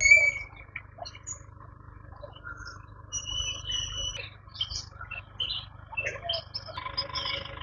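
Several birds chirping and calling in short, high notes, with the loudest call at the very start. About seven seconds in, a steady insect buzz joins them.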